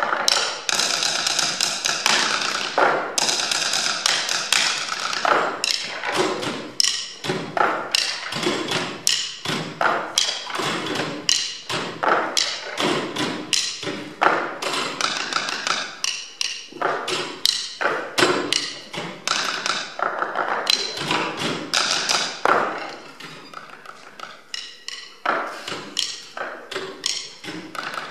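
Tabletop percussion: four players striking wooden school desks with drumsticks in a fast, interlocking rhythm, a dense stream of taps and thuds. The playing drops to a quieter, sparser passage about three-quarters of the way through, then builds again.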